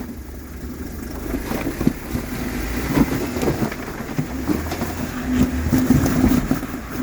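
Four-door Jeep Wrangler engine pulling under load as it crawls over boulders, growing louder about halfway through, with occasional sharp knocks.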